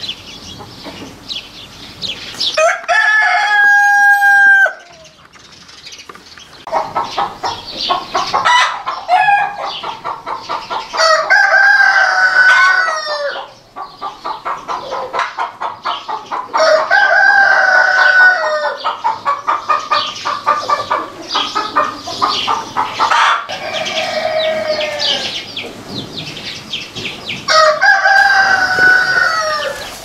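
Roosters crowing about five times, each crow a long held call that falls away at the end. Between the crows, chickens cluck in rapid runs of short, repeated calls.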